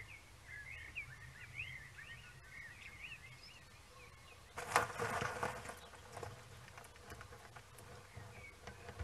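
Small birds chirping for the first few seconds, then about halfway a burst of rustling and crackling in dry twigs and leaves as a red squirrel rolls over in its nest, with a few smaller rustles after.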